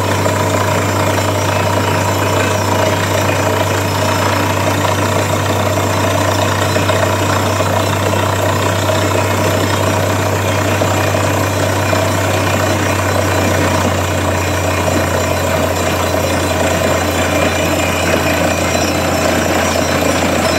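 Truck-mounted borewell drilling rig running steadily under load: its engine and high-pressure air compressor drive the drilling hammer while compressed air blows muddy water and rock cuttings out of the bore, showing water coming in from the formation. A loud, even machine noise with a deep hum that does not change.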